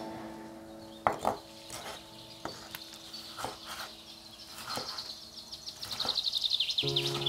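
A few scattered light knocks and clinks of kitchen work, the loudest about a second in, with birds chirping in the background and a quick run of high chirps toward the end. Soft music with held notes plays underneath and swells near the end.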